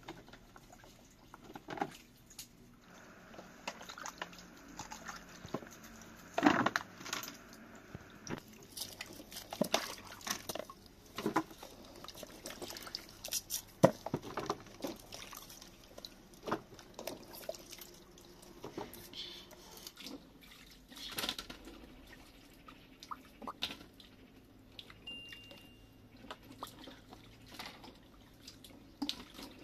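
Hands working with vegetables in plastic bowls, some holding water: irregular light knocks, taps and drips as cucumbers and peppers are handled and sorted.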